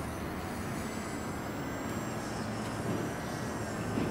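Small electric RC airplane's motor and propeller whining faintly as it flies past, a thin tone that wavers slightly in pitch from about halfway through, over a steady low rumble.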